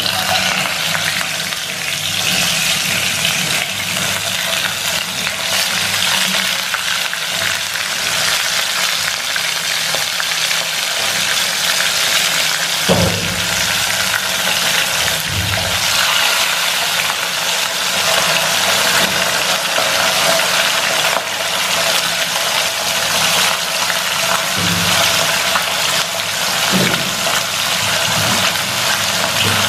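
Whole fish frying in hot oil in a non-stick wok: a steady, loud sizzle, with a single sharp knock about halfway through.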